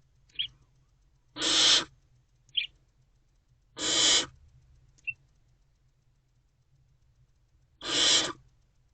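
Barn owlets' rasping begging hisses: three half-second bursts spaced a few seconds apart, with short, faint high squeaks in between.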